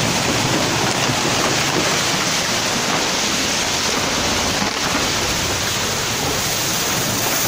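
Steady loud roar of a muddy flash-flood torrent, water and mud rushing down a hillside in a landslide.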